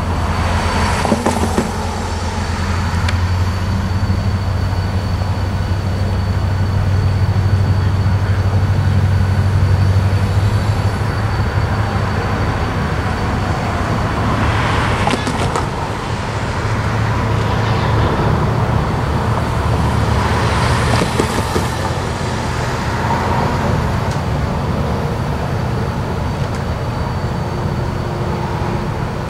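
Cuyahoga Valley Scenic Railroad diesel locomotive 2348 running with a steady low engine hum as the passenger train moves slowly. A few brief noisy surges rise over it: about a second in, about halfway, and about two-thirds of the way through.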